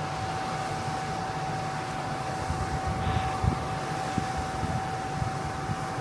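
Steady drone of a large ferry's engines and on-board machinery, with a constant mid-pitched whine, and a few short low thumps in the second half.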